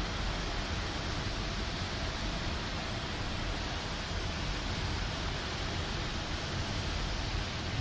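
Steady rush of white-water river rapids heard through an open car window, mixed with the rumble of the car driving slowly alongside.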